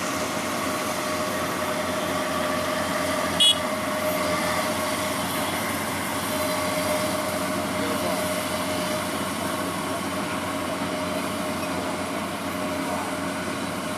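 Kubota DCX 100 rice combine harvester running steadily as it travels: a continuous engine drone with a steady whine. A short, sharp high-pitched chirp stands out about three and a half seconds in.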